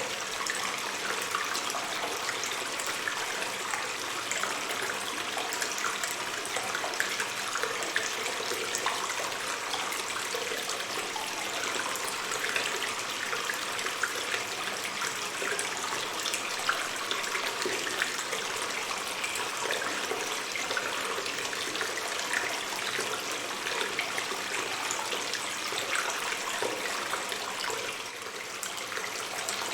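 Water stream running through a cave: a steady rush of water, dotted with many small splashes and trickles, that dips briefly in loudness near the end.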